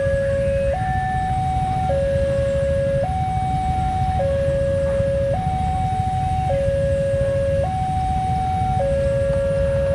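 Railway level-crossing warning alarm sounding its two-tone electronic signal. It alternates steadily between a lower and a higher note, each held a little over a second, over a low rumble: the crossing is closed and a train is approaching.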